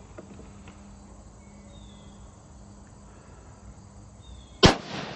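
A single rifle shot from a scoped .243 Winchester bolt-action rifle about four and a half seconds in: a sharp, loud crack with a short ringing tail. Before it there is only a faint, steady outdoor background with insects.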